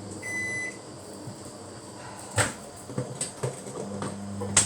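Microwave oven with a mug cake inside: one high electronic beep near the start, then clicks and knocks of the door and the mug from about halfway, and the oven's steady low hum growing stronger near the end.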